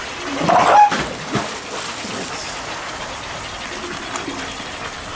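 Seal giving a loud, harsh call about half a second in and a shorter one just after, over steady rushing water: an adult seal protesting at a younger seal climbing onto her rock.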